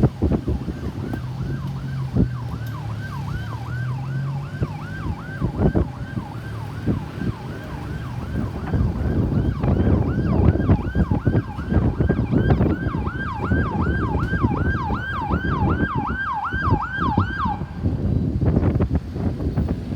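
Ambulance's electronic siren in a fast yelp, each cycle a falling sweep repeated about three times a second. It grows louder in the last few seconds and cuts off suddenly shortly before the end, over the rumble of road traffic.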